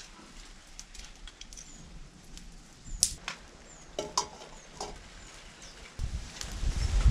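A metal frying pan knocks and rings briefly as it is set on a wire stand over a wood fire about four seconds in. Near the end water pours from a plastic jug into the pan, a louder low splashing.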